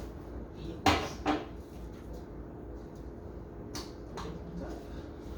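Food containers and packages being handled and set down on refrigerator shelves: two quick knocks about a second in, then a lighter knock near four seconds, over a steady low hum.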